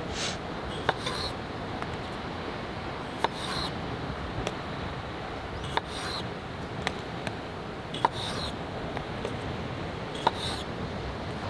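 Small kitchen knife cutting cherry tomatoes on a wooden cutting board: about seven sharp taps of the blade on the board, each with a short slicing rasp, spaced one to two seconds apart, over steady sea surf.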